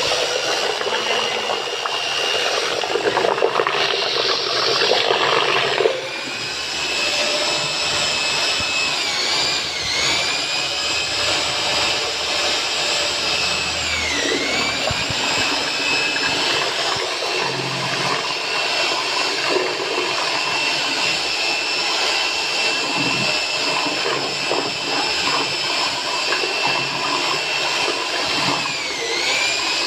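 Electric batter-mixing machine running steadily as it churns martabak batter, its motor whine sagging briefly in pitch and recovering a few times. A louder rush of noise comes a few seconds in.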